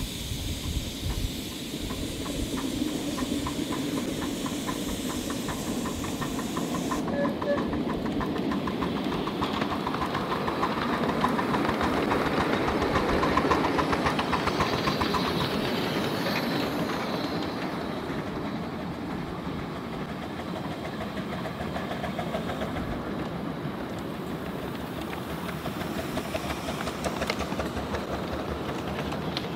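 Ridable miniature live-steam locomotive pulling riders, its exhaust chuffing quickly and its wheels clicking on the track. It grows louder as it approaches, is loudest about halfway through as it passes, then fades.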